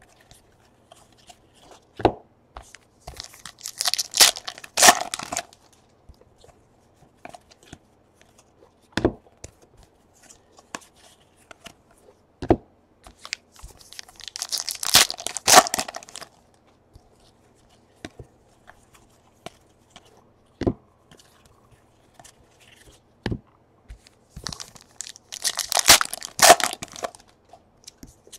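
Baseball card pack wrappers torn open and crinkled by hand, three times about ten seconds apart. In between come light clicks and taps of cards being handled.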